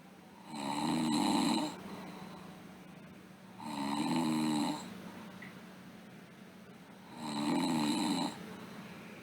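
A sleeping girl snoring in a steady rhythm: three snores, each about a second long and about three and a half seconds apart, with quieter breathing in between.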